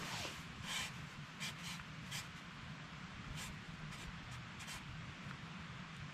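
Faint, irregular scratching and rustling, about eight short scrapes spread over a few seconds, over a low steady background rumble.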